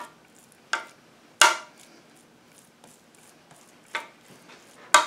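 A kitchen utensil knocking and scraping against a baking pan while wet cornbread dressing is smoothed out. There are four short, sharp knocks spread apart, and the second is the loudest.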